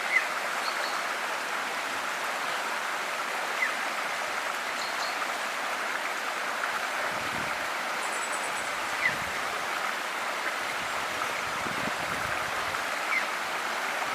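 Steady rushing of a flowing stream or river. Four short, sharp high-pitched notes stand out above it.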